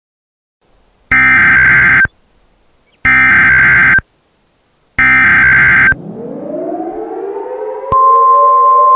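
Emergency Alert System SAME header: three one-second bursts of buzzy digital data tones, about a second apart. About a second after the last burst a siren-like wail winds up, rising in pitch, and near the end a steady high alert tone starts over it and holds.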